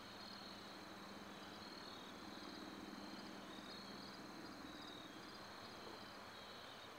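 Faint chirping insects, short groups of high pulses repeating every second or so, over a low steady hum.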